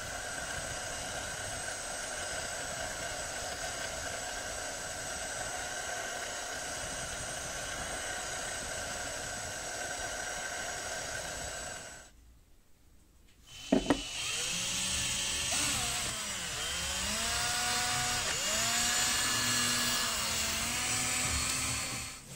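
Drill press motor running steadily while drilling a row of small holes into a wooden handle block. After a short pause there is a sharp knock, then a motor running at changing speed, its pitch rising and falling again and again.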